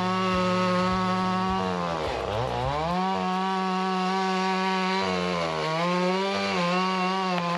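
Two-stroke chainsaw at high revs, cutting through the trunk of a tall tree to fell it. About two seconds in the engine speed drops sharply and climbs back, and it dips briefly twice more later on.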